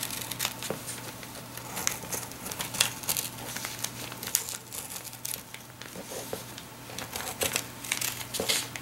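Scissors cutting through a paper pattern pinned to fusible-backed applique fabric: a run of short, irregular snips with the paper crinkling and rustling as it is lifted and turned.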